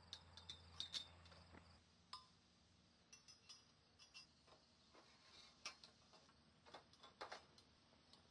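Faint, scattered clicks and clinks of metal tent-frame poles being slid and knocked into their fittings. Crickets chirp faintly at the start and fade out after about two seconds.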